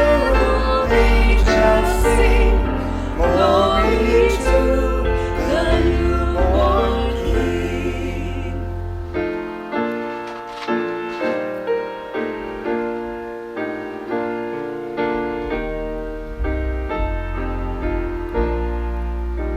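Worship song with singing over piano and bass. About nine seconds in the voices drop out and the piano plays on alone in separate fading notes, the bass coming back in near the end.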